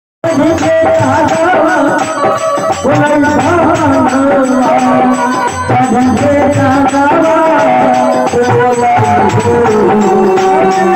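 A man sings a bhajan, a devotional song, into a microphone, with hand-drum beats alongside.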